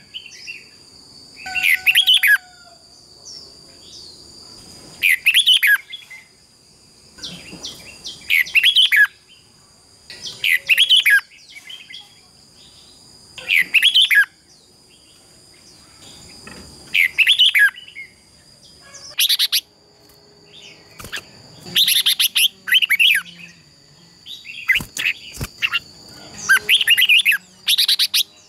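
Red-whiskered bulbuls in competitive song: short, loud, bright phrases repeated every two to three seconds, coming thicker and closer together in the last third, over a steady high-pitched tone.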